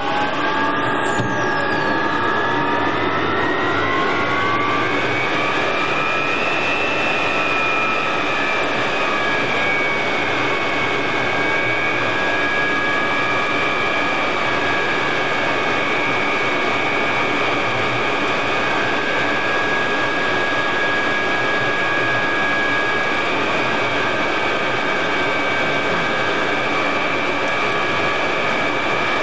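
Mirage III's SNECMA Atar 09C turbojet spooling up after start, heard in the cockpit: its whine rises in pitch over the first several seconds and then holds steady as the engine settles at idle. A very high whine falls away in the first two seconds.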